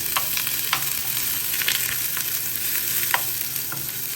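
Chopped onion sizzling in a hot pan with a little olive oil, a steady frying hiss broken by a few short clicks and pops.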